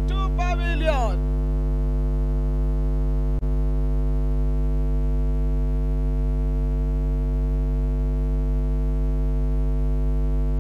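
Steady electrical mains hum, a low drone with an even buzz of overtones, carried on the commentary audio line. It cuts out for an instant about three and a half seconds in.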